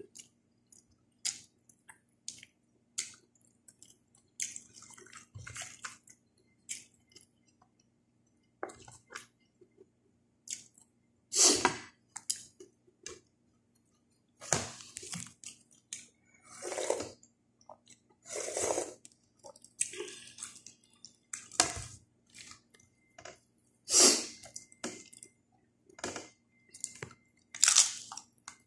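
A person eating close to the microphone: irregular chewing with crunches of raw vegetables such as cabbage leaves and green beans, several of them loud. A faint low hum runs underneath.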